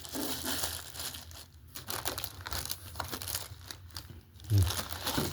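Plastic packaging crinkling and rustling as parts are unwrapped by hand, with a knock about four and a half seconds in.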